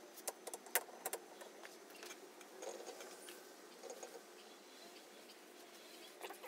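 A folded cotton rag pad patting and wiping wet oil finish onto sanded wooden boards: faint dabs and rubbing, with a cluster of sharp little clicks in the first second or so and a couple more near the end.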